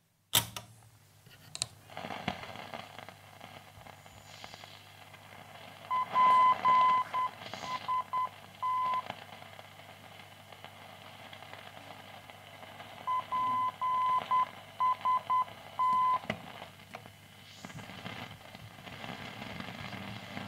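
Grundig 3160 tube radio being tuned across the band through its own speaker: hiss and static over a low hum, with faint whistling sweeps as the dial passes signals. Twice, a keyed single-pitch tone beeps in a dot-and-dash Morse code pattern, the loudest sound. A sharp click comes about half a second in.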